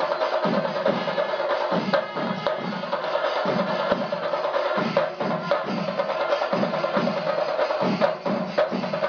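Music with rhythmic drumming, about two strokes a second, over a steady held tone.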